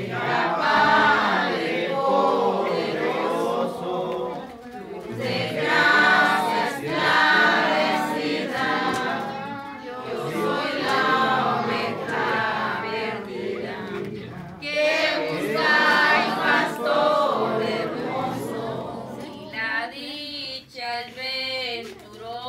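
A group of voices singing a devotional hymn together. Near the end the singing thins out.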